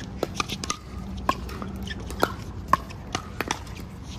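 Pickleball paddles striking a hard plastic ball: a string of sharp pops at irregular spacing, the loudest nearly three seconds in, over a steady low background hum.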